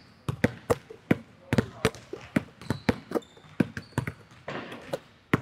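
Basketball dribbled in place on a hardwood court, about three sharp bounces a second in an uneven rhythm.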